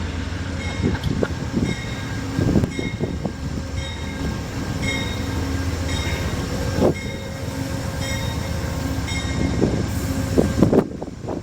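Amtrak passenger train standing at a grade crossing, its diesel locomotive rumbling steadily, while a bell dings over and over. Scattered clunks sound over the rumble.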